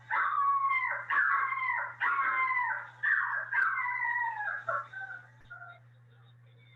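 Recorded dog howls played back: a spaniel puppy howling in a run of about five high cries, each sliding down in pitch, fading out near the end.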